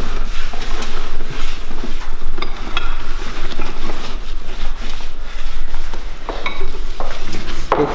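Cloth rubbing and wiping across a wooden altar top, with scattered small knocks and rustles.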